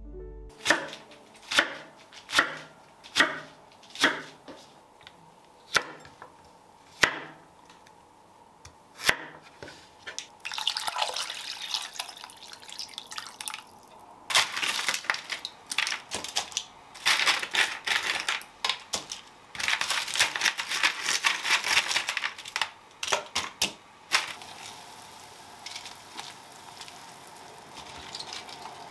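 Kitchen food preparation: a run of sharp knocks like a knife chopping on a cutting board, thinning out and stopping about nine seconds in. Then stretches of running, splashing water that start and stop several times, and near the end a quieter steady hiss from the pot heating on the stove.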